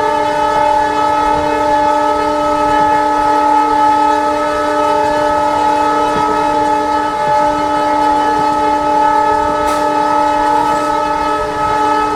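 Diesel locomotive's air horn held in one long unbroken blast, a steady chord of several pitches.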